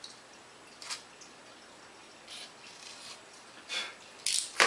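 Hands handling foam model-plane parts and tools on a wooden worktable: a few short scrapes and rubs, then a sharp knock, the loudest sound, near the end.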